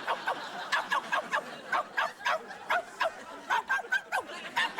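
A woman imitating a small dog, yapping in quick short barks at about four a second.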